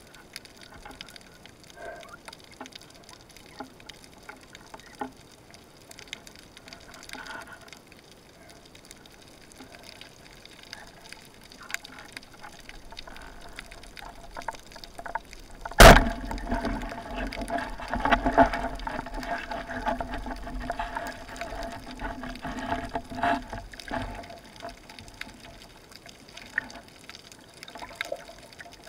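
Underwater, a band-powered wooden speargun fires with one sharp, loud snap about 16 s in. Several seconds of louder crackling, rushing water noise follow as the speared mullet struggles on the shaft, then quiet underwater ambience returns.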